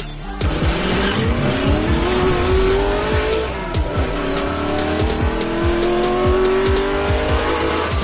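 Car engine sound effect accelerating hard. Its pitch climbs, drops at a gear change about four seconds in, then climbs again, over music with a steady beat.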